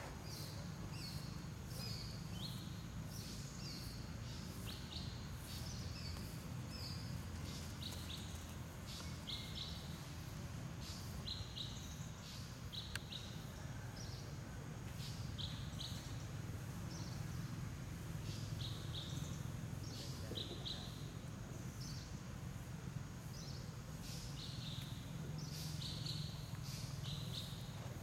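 Repeated short, high-pitched bird chirps, one or two a second, over a steady low rumble.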